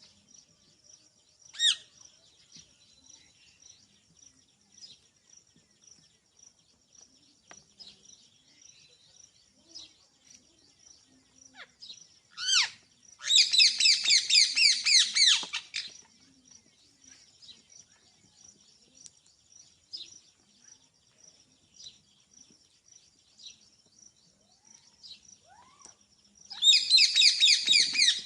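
Rose-ringed (ringneck) parakeet screeching: single harsh calls, then two bursts of rapid repeated shrill calls, one in the middle and one near the end, with soft chirps between.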